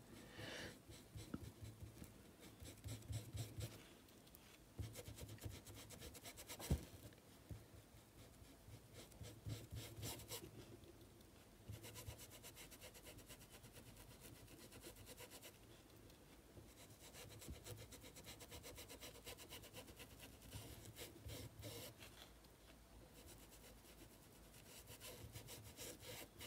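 Faint rubbing of a paintbrush working paint into cloth stretched on a board, in circular strokes.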